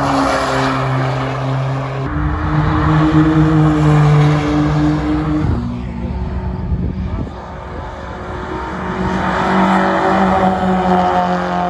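Sports car engine accelerating hard past on a track, changing up a gear about two seconds in and dropping away around five and a half seconds as it passes and fades; a second car's engine grows louder near the end as it approaches.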